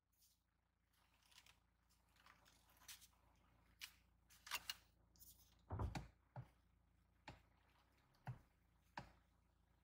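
Near silence broken by faint, irregularly spaced clicks and knocks, about a dozen of them, the loudest a short cluster around the middle.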